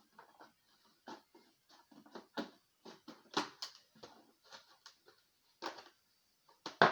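Plastic milk jug being handled, giving irregular crinkles and light knocks, with a louder knock near the end.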